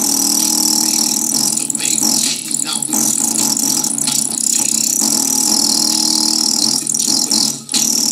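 Small cheap full-range speaker driven hard by an amplifier with a bass-heavy music mix, its cone pushed to its limit and the sound distorted and buzzy. It dips briefly about seven and a half seconds in.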